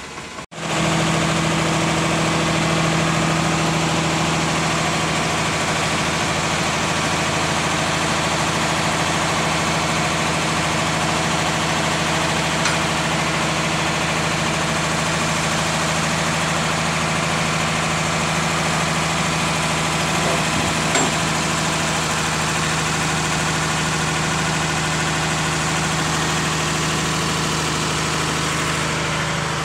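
Sonalika DI 750 tractor's diesel engine running steadily at a constant speed while it powers the hydraulic tipper raising the sand-loaded trolley.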